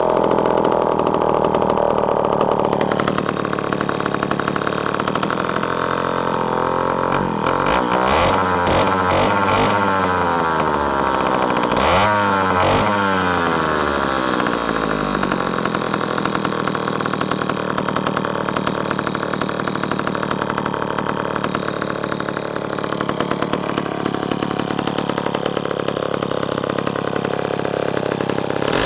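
Homelite 17L gear-drive chainsaw's two-stroke engine running, with the throttle opened and let fall back a few times about a third of the way in before it settles to a steady run. It is running fat (rich), having not been started in quite a while.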